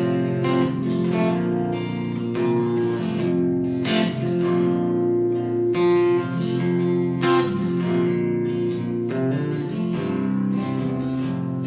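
Solo acoustic guitar played between sung verses, strummed chords ringing on, with no voice.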